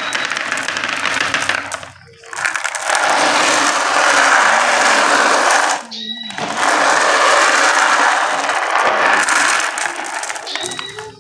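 Glass marbles rolling and clattering around a plastic tray in a continuous rattle, breaking off briefly about two seconds in and again about six seconds in.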